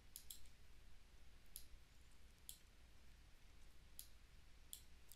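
Faint clicks of a computer mouse button, about six, at irregular spacing, over a low steady room hum.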